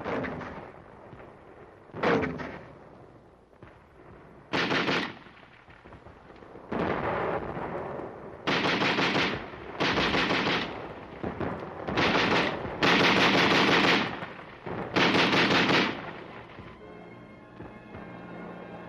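Gunfire: two single heavy shots with a ringing tail, then half a dozen bursts of machine-gun fire, each about a second long. Faint music comes in near the end.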